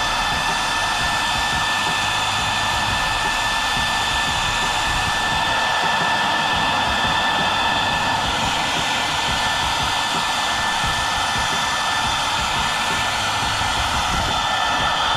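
Hand-held hair dryer running steadily on its high (second) speed: an even rush of air with a thin, steady high whine from the fan motor.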